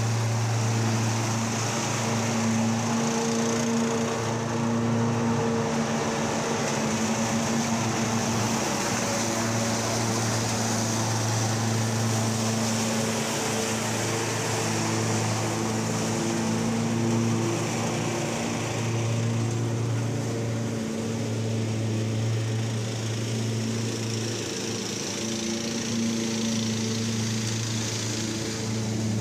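A Cyclone Rake leaf vacuum's engine and impeller running at steady speed, towed by a Kubota ZG222 zero-turn mower with its own engine running: a continuous engine drone with a rushing hiss of air and leaves above it.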